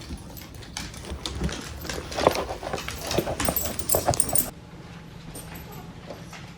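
Dogs whimpering and stirring, with scattered short clicks and rattles, that die down about four and a half seconds in.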